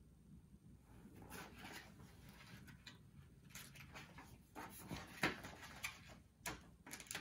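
Pages of a hardcover picture book being flipped by hand: faint paper rustles and flicks, busiest in the second half.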